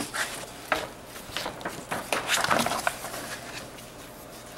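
Large paper wargame maps being handled and shifted on a table: irregular rustling and crinkling with a few sharp ticks, loudest around the middle.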